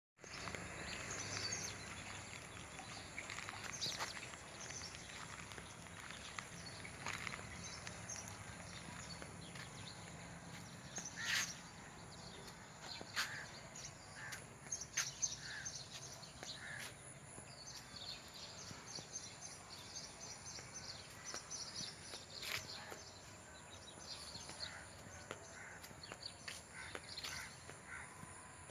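A flock of sparrows chirping, many short, high calls overlapping one another.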